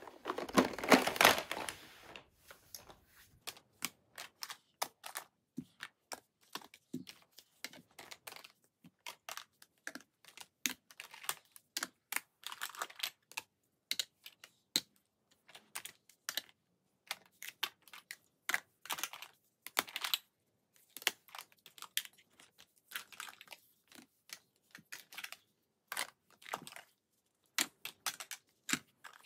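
Makeup compacts of plastic, metal and cardboard clicking and clattering as they are picked up and set down one after another on a carpet and on top of each other. The clicks come at an uneven pace, with a denser, louder rummaging clatter in the first two seconds.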